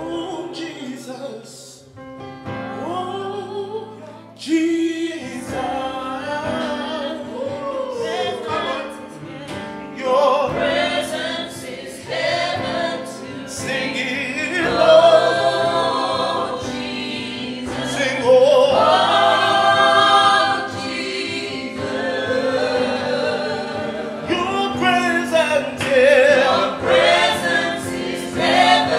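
A small gospel worship group of men and women singing together in harmony over sustained electric keyboard chords.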